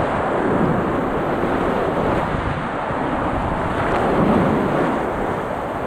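Loud, steady rush of a river in flood running as whitewater rapids around a kayak.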